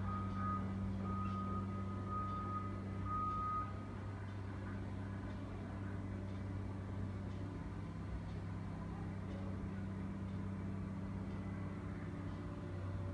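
A construction vehicle's reversing alarm sounding repeated single-tone beeps, stopping about four seconds in, over the steady low hum of heavy machinery running.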